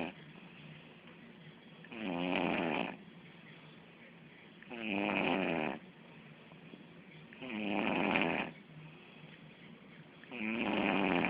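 Slow, regular snoring: a snore about every two and a half seconds, each lasting about a second, with quiet pauses between them.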